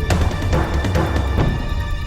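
Recorded music with a heavy bass and a steady beat of sharp percussive hits, about two or three a second.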